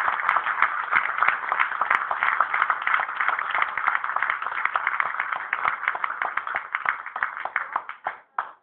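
Audience applauding: dense clapping that thins to a few last claps and stops near the end.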